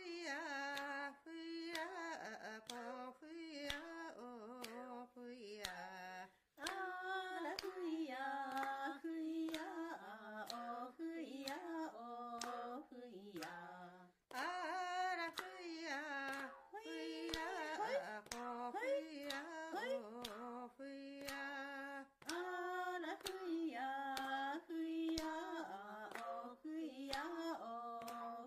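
A woman singing a repeated melody in phrases of about eight seconds, with short breaks between them, over a steady beat of sharp strikes about twice a second.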